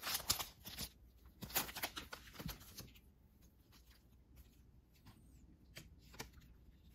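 Sports trading cards being handled: cards rustling and clicking against each other as they are picked out of a cardboard box and sorted in the hands. Busy in the first three seconds, then only a few faint clicks.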